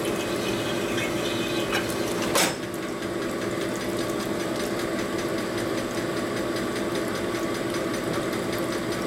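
Horizontal honing machine running with a steady hum while a flathead cylinder is worked on its spindle to true a valve guide hole, with one sharp clank about two and a half seconds in.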